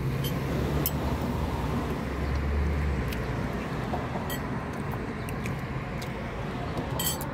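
A car passing on the street: a low rumble, loudest about two to three seconds in and then fading, with a few light clicks over it.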